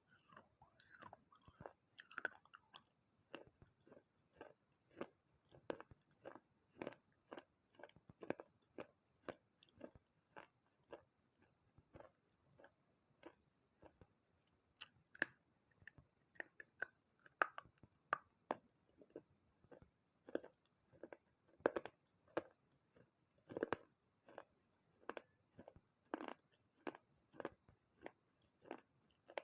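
Close-up chewing of pieces of a water-soaked clay pot and clay saucer: a steady run of short, crunchy chews, about two a second.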